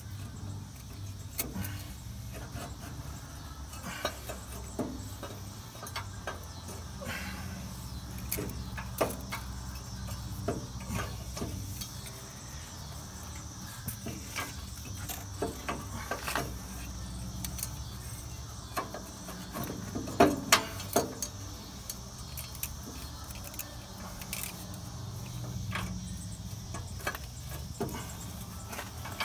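Scattered metallic clinks and knocks as an exhaust manifold is worked by hand onto the cylinder-head studs and lined up with the exhaust flange, with a cluster of louder knocks about twenty seconds in.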